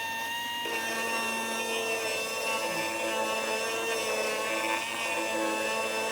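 Die grinder with a cut-off wheel running at speed, trimming a fibreglass cowl: a steady high whine.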